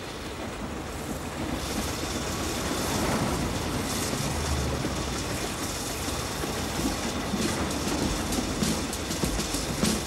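Narrow-gauge steam train of the Ffestiniog Railway running past, growing louder over the first few seconds. Its wheels clack over the rail joints, the clacks coming thicker and sharper near the end.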